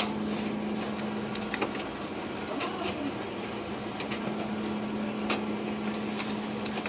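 Ricoh photocopier running as it prints and feeds out a copy: a steady hum with scattered mechanical clicks, and a sharper click about five seconds in.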